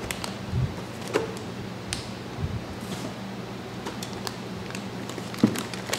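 Unboxing sounds: a plastic accessory bag crinkling and scattered light knocks and taps from a cardboard box being handled, over a steady low hum.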